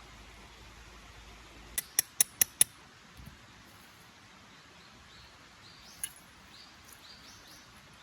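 Five sharp clicks in quick succession, about five a second, followed later by faint short high chirps.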